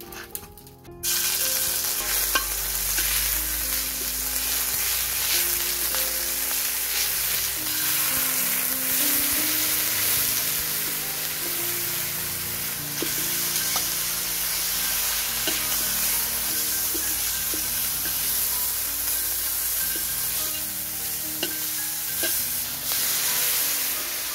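Knife chopping on a wooden board for a moment, then food sizzling loudly in a very hot wok as a metal spatula stirs and scrapes it, starting about a second in.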